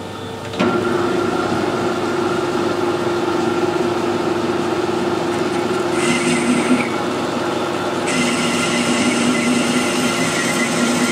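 Metal lathe starting up about half a second in and running with a steady hum. A stiff brush held against the spinning workpiece adds a scratchy hiss, briefly around six seconds and again from about eight seconds on.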